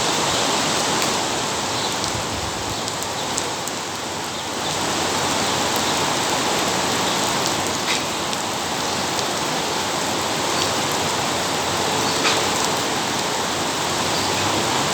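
Heavy rain pouring down steadily, with a few sharp drip taps about eight and twelve seconds in.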